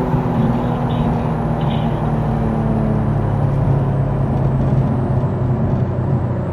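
Infiniti Q60's twin-turbo V6 running at a steady cruise with its exhaust valves open, heard from inside the cabin; the engine note eases down slightly and then holds steady.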